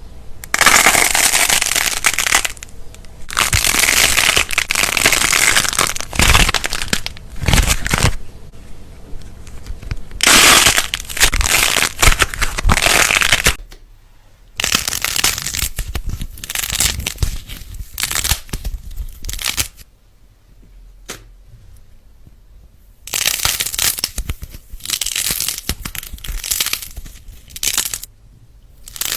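Slime being squeezed and worked by hand in repeated noisy bursts of a few seconds each, with short pauses between them and a quieter spell about two thirds of the way through.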